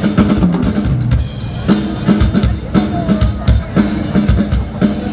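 Rock music with a driving drum-kit beat and a steady bass line. The cymbals and upper instruments drop out for about a second near the start, then the full band comes back in.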